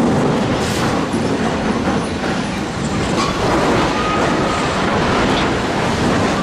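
Heavy mobile crane toppling from a barge onto houses: a loud, continuous rumbling crash of grinding metal and falling debris, with water thrown up as it comes down. A faint squeal rises and falls about halfway through.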